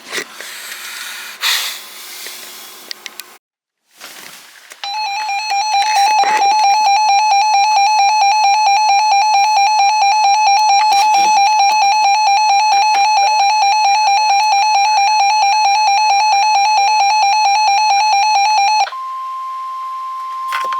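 Emergency Alert System attention tone received over radio. After a few seconds of noisy signal and a brief dropout, a loud steady tone with a fast even pulsing sounds for about fourteen seconds. It then gives way to a single, higher, quieter steady tone for about two seconds.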